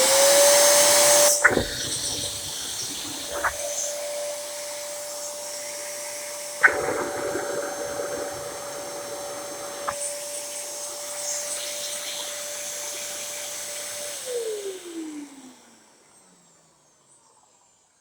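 Dyson DC07 upright vacuum cleaner running with a steady whine and hiss. About a second and a half in, a click and a drop in loudness as the brush bar is switched off, and a few more sharp knocks follow. Near the end the vacuum is switched off and its motor winds down, falling in pitch until it stops.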